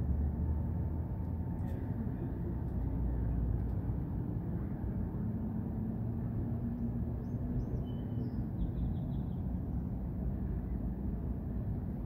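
Outdoor ambience: a steady low rumble, with a few faint high chirps about two-thirds of the way through.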